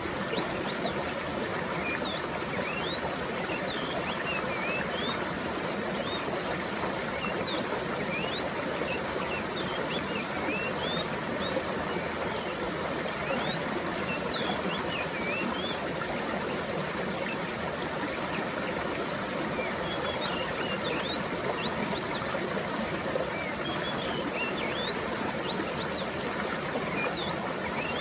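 Stream of water flowing steadily, with many small birds chirping short, quick, rising notes over it.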